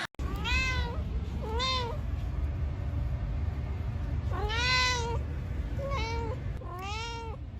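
Domestic cat meowing five times, each meow rising and then falling in pitch, over a low steady hum.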